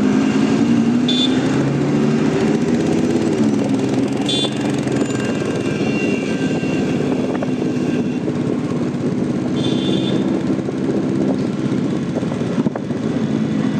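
Lamborghini Huracán EVO Spyder's V10 engine running steadily at low revs, its pitch drifting gently up and down. Three brief high-pitched sounds come over it.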